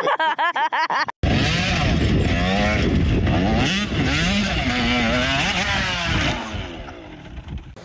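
Dirt bike engine revving up and down, its pitch rising and falling repeatedly. It starts abruptly about a second in and fades near the end as the bike goes down in a crash.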